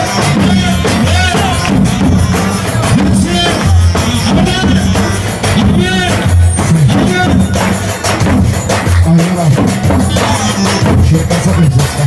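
Loud live dance music: a large double-headed bass drum (davul) beaten with a wooden stick in a steady, heavy beat, under a high melody line that bends up and down.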